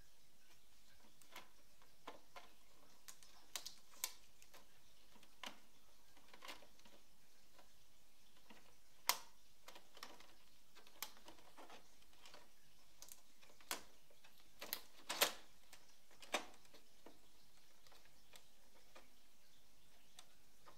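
Irregular sharp plastic clicks and knocks as an Epson Stylus Photo PX720WD printer's parts are handled: the ink cartridge bay, then the front paper trays being pulled and fitted. The loudest snaps come a little before halfway and about three-quarters through.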